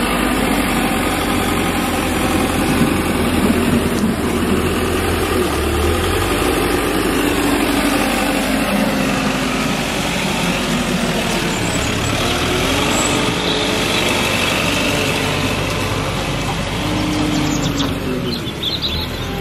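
Kramer wheel loader's diesel engine running close by, its pitch rising and falling a few times as the machine works and moves.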